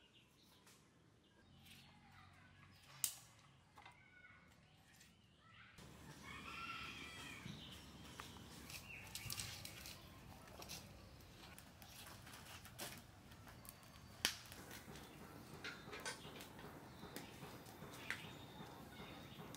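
Vegetables being sliced on a boti, a curved blade fixed on a wooden base on the floor, giving sharp cutting clicks every second or two. Chicken calls are heard in the background from about six seconds in.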